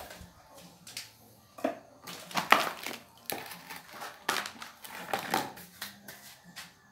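Irregular scraping, knocking and gritty crunching as a plastic tub of damp clay is handled beside an upturned bucket mold and set down on a work table, and the damp clay is worked onto the mold and compacted.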